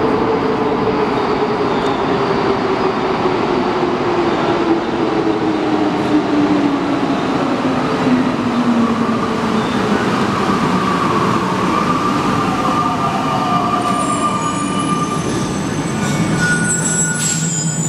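Alstom NS-93 rubber-tyred metro train arriving and braking into a station: a steady rumble with a motor whine that falls steadily in pitch as it slows. In the last few seconds, as it comes to a stop, high-pitched squealing tones and a few short sharp sounds come in.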